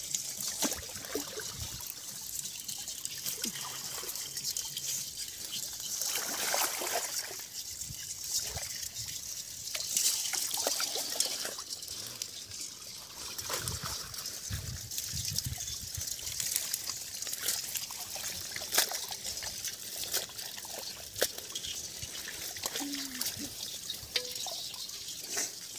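Water splashing and trickling as a bamboo-framed hand net is worked through a pond choked with water hyacinth. Scattered small clicks and crackles run through it.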